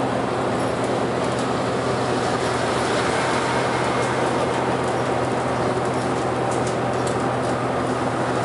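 Inside a city bus cruising on an expressway: the steady drone of its engine with tyre and road noise, and a few faint rattles near the end.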